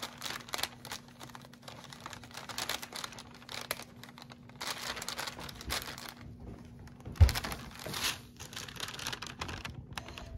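Rustling and crinkling of a translucent plastic or paper overlay sheet as hands smooth and lift it over the applique pieces, in irregular spurts, with a single sharp knock about seven seconds in.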